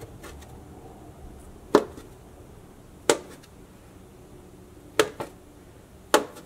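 Kitchen knife cutting through a soft log of potato dough, the blade knocking sharply on a metal baking tray at each cut: four knocks, roughly one to two seconds apart.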